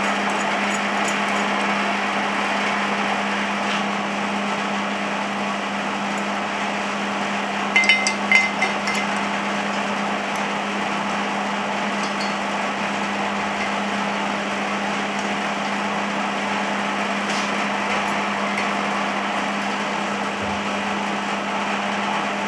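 Steady background hum with an even rushing noise, over which steel bolts and washers are handled, giving a short cluster of light metallic clinks about eight seconds in.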